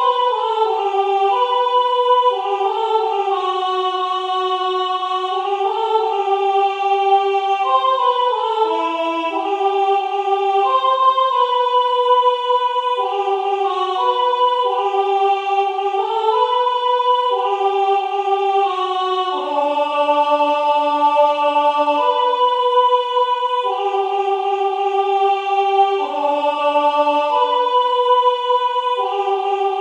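MIDI rendering of a three-part choral hymn in choir-like synthesized tones, used as a rehearsal track for the mezzo-soprano part. Two or three notes sound at once, each held at a flat, unwavering pitch and moving together from chord to chord.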